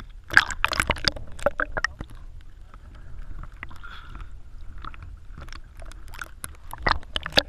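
Water splashing and sloshing around a small boat or swimmers, with clusters of sharp knocks and clatter from about half a second to two seconds in and again near the end.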